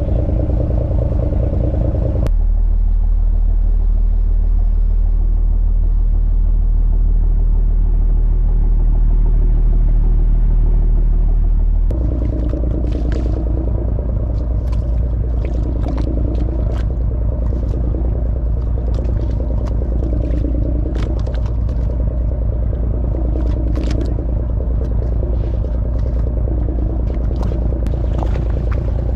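Fishing boat's engine running with a steady low drone, its tone changing abruptly twice. Scattered sharp clicks and knocks ride over it in the second half.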